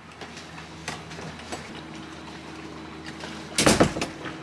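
A steady low hum over faint background noise, with a brief loud rush of noise about three and a half seconds in.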